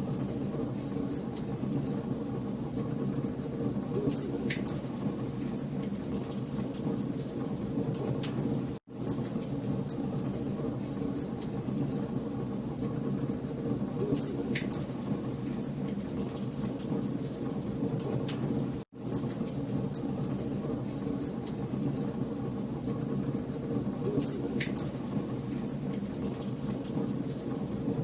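Wood fire crackling in a fireplace: a steady hiss and low rumble with scattered sharp pops. The sound cuts out for a split second twice, about nine and nineteen seconds in.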